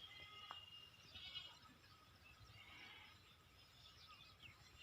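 Faint goats bleating a few times, heard from a distance over near silence.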